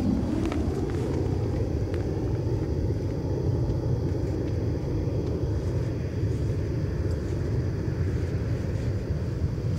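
Steady low outdoor rumble with no clear events, the background of an open-air field recording.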